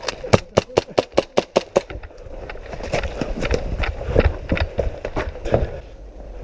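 Airsoft gunfire: a fast, even string of about nine shots, about five a second, then scattered, fainter shots over the next few seconds.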